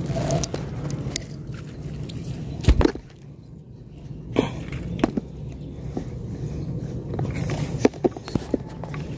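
Handling noise from a just-caught fish being held up on the line: scattered sharp knocks and rubbing, the loudest about a third of the way in, over a steady low hum.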